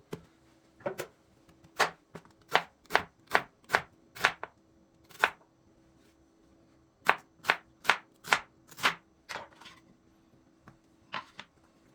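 Knife chopping on a cutting board: sharp, separate strokes in two quick runs of about two to three a second, with a pause between them and a last single stroke near the end.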